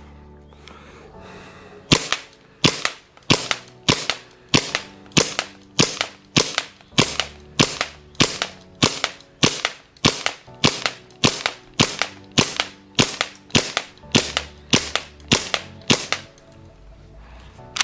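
Tokyo Marui Glock 22 gas blowback airsoft pistol firing in semi-auto, a steady string of about two dozen sharp shots at roughly three every two seconds, each shot a pop with the slide cycling. The shots start about two seconds in and stop near the end.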